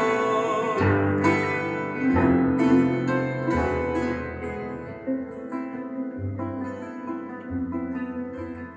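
Instrumental passage of a classical aria without singing: a plucked-string and keyboard accompaniment, with bass notes moving about once a second and the playing growing gradually softer.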